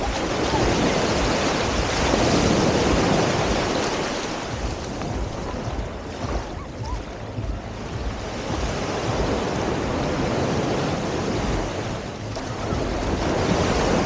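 Ocean surf rushing on a beach, with wind buffeting the microphone. The wash swells in the first few seconds, eases off around the middle and builds again near the end.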